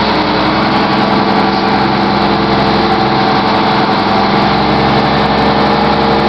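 Engine of a Parca 854 loader running steadily as the machine drives, heard from its cab, with a slight rise and fall in pitch partway through.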